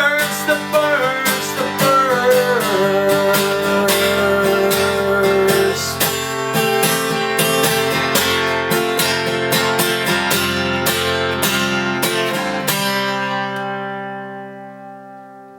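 Acoustic guitar strummed in a steady rhythm, ending about three seconds before the end on a final chord that rings out and fades away.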